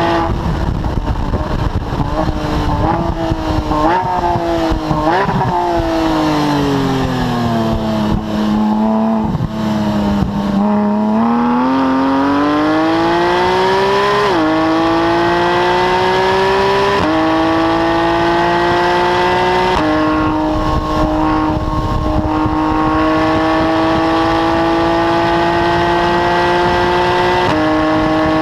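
Porsche 991 GT3's flat-six engine heard close to the exhaust tips: the note falls under braking, with three quick rising blips on downshifts in the first few seconds, bottoms out about a third of the way in, then climbs under full acceleration. Four upshifts come as sudden drops in pitch, the later gears rising more slowly.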